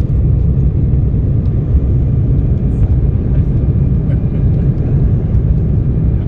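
Steady low rumble inside the cabin of an Embraer 190 airliner rolling on the ground, its GE CF34 turbofan engines running, with a faint steady whine above the rumble.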